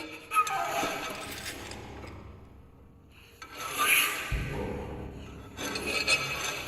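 Contemporary chamber music for alto flute, alto saxophone, piano and percussion, played in noisy extended techniques: rasping, scraping and breathy sounds in separate swells. The swells are split by a near-pause in the middle, and a low thud comes about four seconds in.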